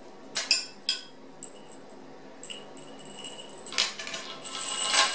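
Light metallic clinks and rattling from the anodized aluminium pull-through chain of a gun cleaning kit being handled: a few sharp clicks in the first second, then a longer jingling rattle near the end.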